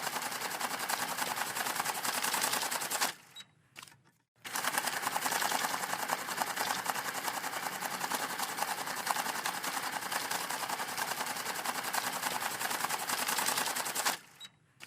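Banknote counting machine riffling bills through with a rapid, even flutter of clicks. It stops about three seconds in, starts again a second or so later, and stops near the end.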